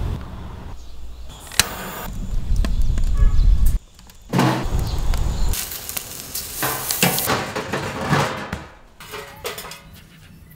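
Short outdoor sound clips cut together: a low rumbling haze for the first few seconds with a sharp click, then steak sizzling and crackling on a grate over a charcoal fire.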